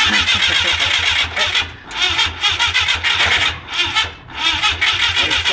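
Citroën GS air-cooled flat-four engine cranking on its starter motor, turning over in a rapid even rhythm without catching, with a few brief dips: the engine will not start.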